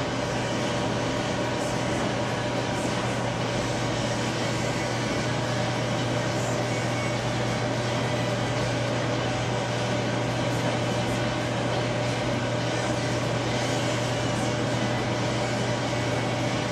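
A steady mechanical hum with a low drone and an even hiss over it, unchanging in level.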